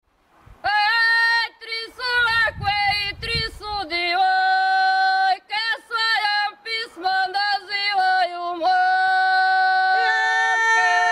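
A woman singing ojkavica, the unaccompanied Croatian folk song. She holds long sustained notes broken by short pauses, with glides where the notes begin and end.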